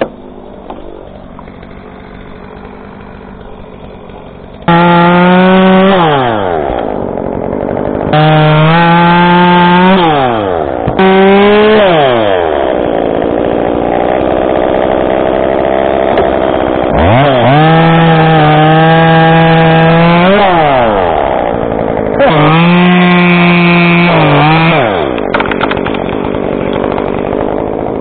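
Chainsaw idling quietly, then opened up about five seconds in and run in repeated full-throttle bursts, its pitch dropping back between bursts and sagging lower while cutting through a cherry trunk. It falls back to idle near the end.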